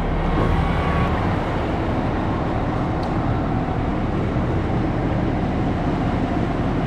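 A large truck engine running steadily, a low continuous rumble.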